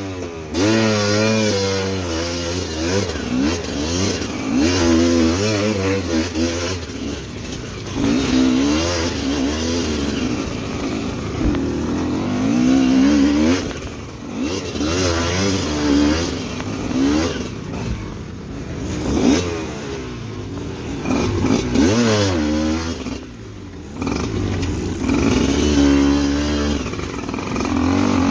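Motorcycle engine revving up and dropping back over and over, its pitch rising and falling every second or two, as it climbs a steep rocky trail.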